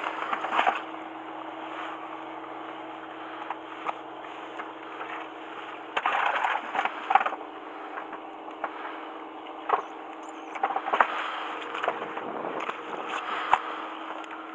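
Knocks and scraping of things being handled on a boat's deck mat, over a steady low hum from the boat. The knocking comes in clusters about six seconds in and again near the end.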